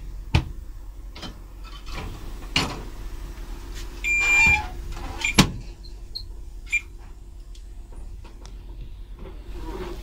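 Cab of a ChS4t electric locomotive: a steady low hum with scattered sharp clicks and knocks from the driver's controls. About four seconds in, a brief high-pitched beep sounds.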